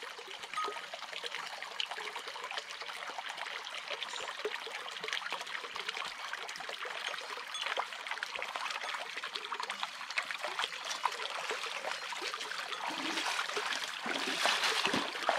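Shallow stream trickling and babbling steadily. Near the end the water grows louder, with splashing as someone wades into the stream and reaches into the water.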